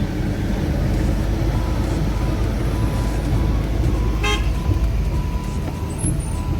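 Steady low road rumble of a car driving, heard from inside the cabin, with a short toot about four seconds in.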